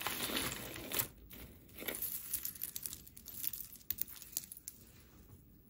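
Crinkling and rustling of packaging with scattered small clicks as jewelry pieces are handled. It is busiest in the first second and thins out toward the end.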